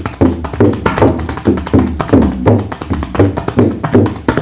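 Tabla played in a quick, even chugging rhythm imitating a running train, with deep bass strokes that slide down in pitch between sharper taps.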